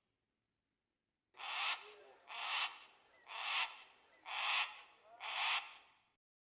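Hawk calling five times in an even series, about one rough scream a second, starting after a second or so of silence.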